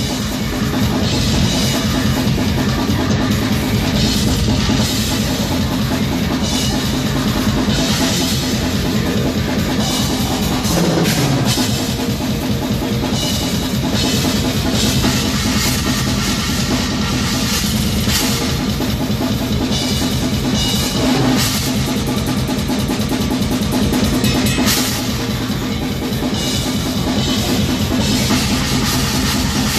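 A metal band playing live at full volume, with the drum kit loudest: rapid, unbroken drumming and cymbals over distorted guitars, picked up close to the drums by a phone microphone.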